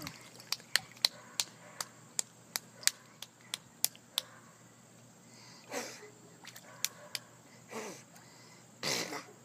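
A toddler's hands slapping in a quick run of about a dozen sharp slaps, roughly three a second, lasting about four seconds. After that come a few short vocal sounds from the child.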